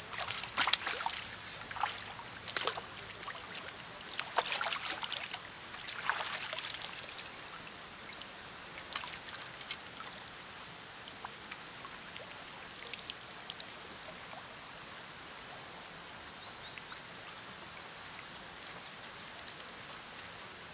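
Water splashing as a hooked trout thrashes at the surface and is scooped into a landing net. The splashes are thickest over the first six seconds or so, with one sharp splash about nine seconds in; after that there are only light drips and trickles.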